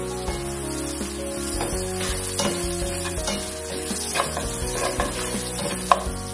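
Chopped onions with garlic and ginger paste sizzling as they fry in hot oil in a non-stick pan, stirred and scraped around with a spatula, with a sharp tap of the spatula near the end.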